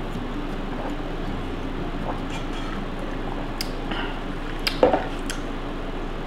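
Sipping a drink through a straw, with small wet sucking and swallowing sounds over a steady background hiss, and one sharper knock a little before five seconds in as the glass is moved.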